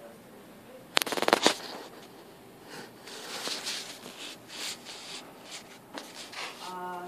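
Handling noise on the microphone as the recording device is moved about: a quick rattle of clicks about a second in, the loudest part, then a run of soft scuffing and rustling.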